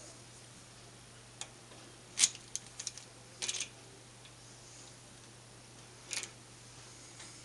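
A few sharp clicks and light metallic clinks as small steel parts are handled and a steel pin is set down on the lathe bed. The loudest comes about two seconds in, a quick cluster follows over the next second and a half, and a last clink comes about six seconds in.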